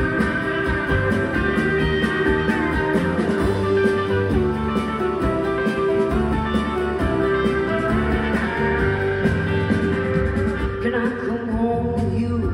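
Live band playing a blues-rock song with guitars, piano, keyboard and drums, an instrumental passage between sung verses.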